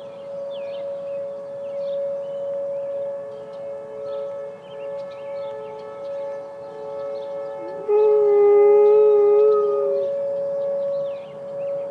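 Emergency civil defense siren sounding a steady tone. About eight seconds in, a Malamute–Great Dane mix dog howls loudly over it for about two seconds, its pitch sliding up at the start and then holding with a slight waver.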